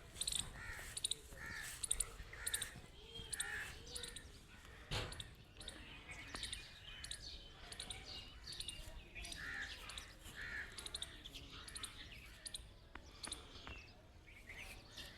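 Birds calling and chirping, many short calls overlapping in quick succession, with a single sharp knock about five seconds in.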